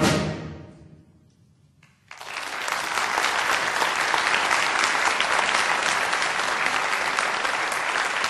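Orchestral music fades out in the first second; after a brief near-silence, an audience breaks into steady applause that continues.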